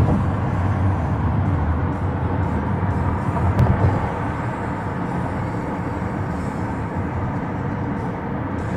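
Steady road and engine rumble of a car driving on a freeway, heard from inside the cabin, with a brief knock about three and a half seconds in.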